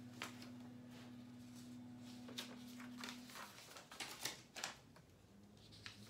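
Faint handling of a paper card and a strip of tape: a few soft rustles and crinkles, the most between about two and a half and five seconds in, as tape is pulled off and the card is pressed onto a monitor screen. A low steady hum runs under it and stops about halfway through.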